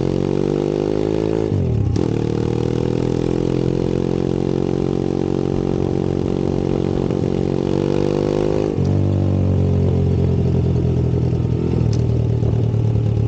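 Tao DBX1 140cc pit bike's single-cylinder four-stroke engine under way, riding. The engine note climbs, drops about two seconds in, climbs slowly again, then drops about nine seconds in and runs steadier.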